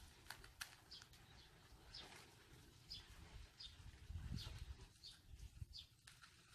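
Faint chirping of small birds: short high calls every half second to a second. A low rumble swells about four seconds in.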